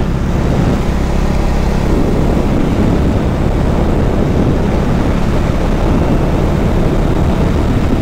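Bajaj Dominar 400 motorcycle riding at road speed: a steady rush of wind and road noise, with the single-cylinder engine running evenly underneath.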